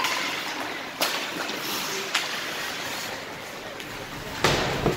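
Ice hockey play on a rink: a steady hiss of skates scraping the ice under crowd chatter, with about four sharp knocks of sticks and puck, the loudest near the end.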